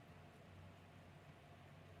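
Near silence: faint hiss with a low hum.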